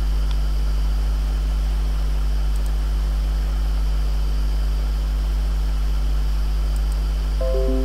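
Loud steady low hum with hiss, the background noise of a computer-recorded microphone channel with no one speaking. Near the end, four quick tones step down in pitch one after another.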